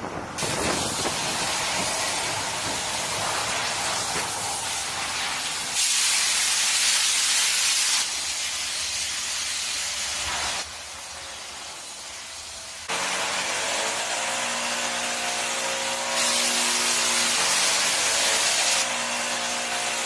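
Road-repair machinery hissing and running, with the level jumping up and down abruptly several times. In the second half a steady machine hum with several pitches runs under the hiss.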